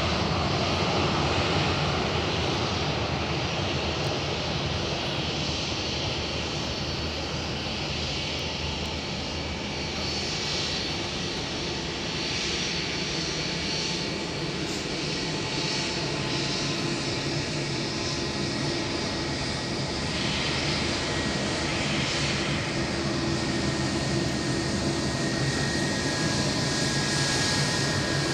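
A Boeing 737-800's twin CFM56-7B turbofan engines running at taxi power: steady jet engine noise, with a thin high whine coming in near the end.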